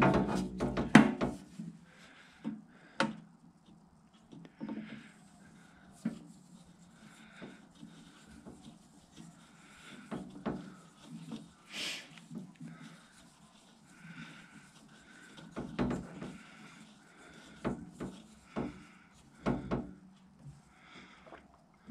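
Handling noise of a hose fitting being screwed by hand onto a parts washer's small pump outlet: scattered rubbing, scraping and light knocks. The louder clatters come at the start and about 12, 16 and 20 seconds in.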